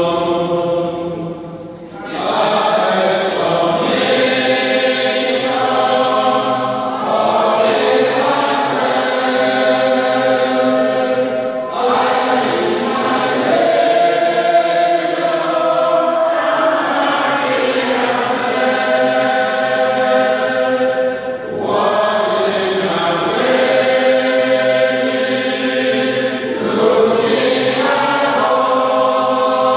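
A group of pilgrims singing a hymn together in a domed church, holding long notes in phrases with brief pauses between them.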